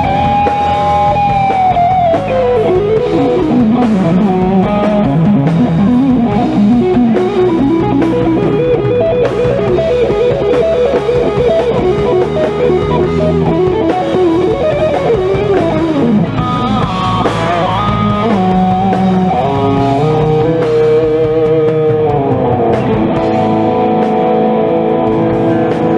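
Live instrumental rock: an electric guitar plays lead lines with string bends over bass guitar and drums, and settles into long held notes near the end.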